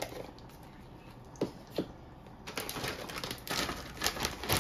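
Plastic crouton bag crinkling and rustling as croutons are shaken out of it over a salad bowl, starting about halfway through. Before that, two short sounds over near quiet.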